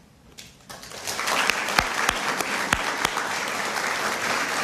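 Audience applauding, starting about a second in and quickly building to a steady level. A few sharp knocks stand out in the middle.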